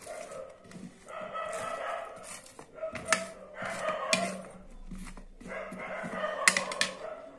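A steel spoon stirring cut guava pieces on a plate, with a few sharp clinks of the spoon against the plate. Behind it, an animal calls over and over in high, drawn-out cries.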